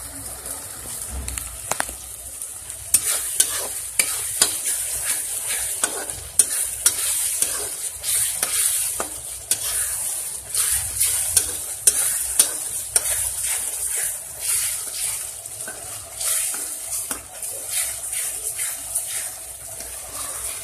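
Masala gravy sizzling in a kadai, freshly thinned with hot water, while a spatula stirs it. Irregular scrapes and knocks of the spatula against the pan run through from about three seconds in, over a steady hiss.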